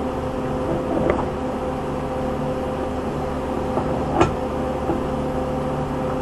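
Steady machine hum, with a light click about a second in and a sharper click about four seconds in.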